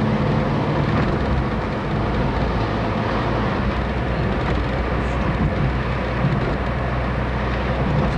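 A car driving along: its engine running with a steady low hum, under the even rush of tyres and road noise.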